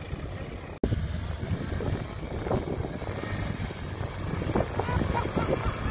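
Vehicle engine running with a steady low rumble, as a truck sits bogged in soft sand. The sound cuts out for an instant just under a second in.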